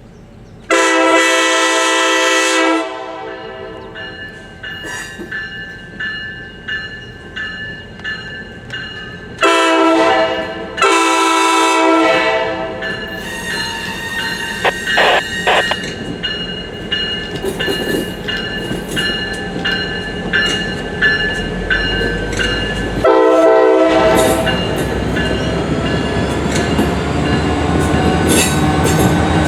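Diesel locomotive horn of an EMD GP40WH sounding four blasts, the first about two seconds long and the last shortest, as the slow-moving train passes. Between the blasts, wheels click over rail joints, and the locomotive's engine rises in pitch near the end.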